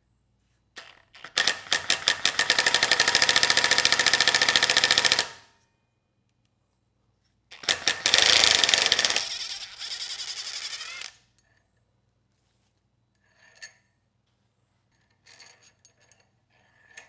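Impact wrench hammering rapidly on the generator rotor's through-bolt in two long bursts, spinning the bolt out so the rotor can be pulled off its tapered shaft. A few light metallic clicks of tool handling follow near the end.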